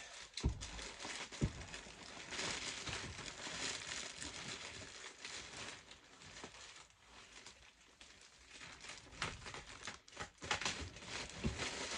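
Large clear plastic bag crinkling and rustling as it is handled around a big boxed figure, with a couple of soft knocks about half a second and a second and a half in.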